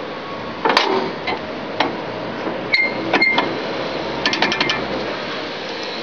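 Metal knocks and clicks from a Whites mechanical quick coupler on a Terex/Fermec backhoe loader as its spring-loaded latch lever is worked by hand. There are a few separate knocks, then two ringing metal clanks about three seconds in, and a quick run of about six clicks a second or so later.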